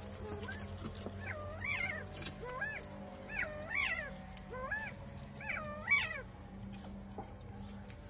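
Northern bobwhite quail calling: a series of about eight short calls, each rising and falling in pitch, from about a second in until about six seconds in.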